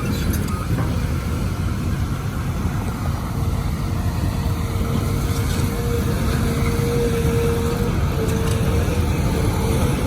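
Excavator's diesel engine running hard, a heavy steady rumble, with a steady hydraulic whine coming in a few seconds in and dropping out briefly near the end. A backup-alarm beep sounds at the very start.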